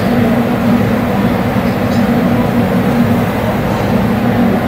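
Steady low rumble with a constant hum, the running noise of a commercial kitchen's ventilation and equipment.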